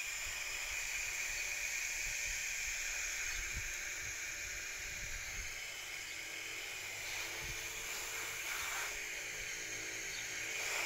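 Water spraying from a hand-held garden hose nozzle onto leafy plants: a steady hiss, a little weaker in the second half.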